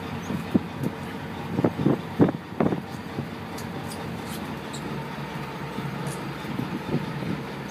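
A few short, dull thumps about two seconds in as a large mahi-mahi is handled and lifted on the boat's deck, over a steady rumble of the boat and wind.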